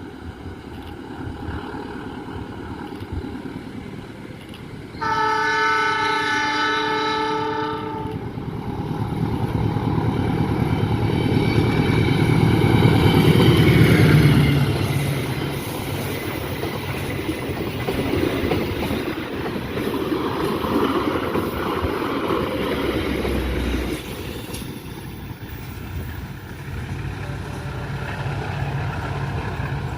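Argo Wilis express train passing at speed. Its locomotive sounds a three-second horn blast about five seconds in, then the locomotive goes by, loudest about halfway through. The carriages' wheels keep running over the rails for several seconds more, and the sound drops off noticeably near the end.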